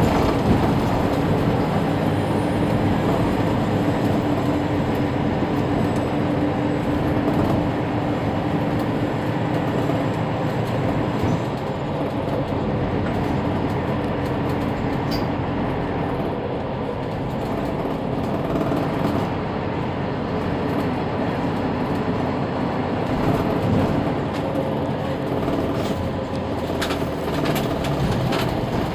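Mercedes-Benz Citaro C2 city bus running in service: a steady engine drone with road and drive noise, heard from on board.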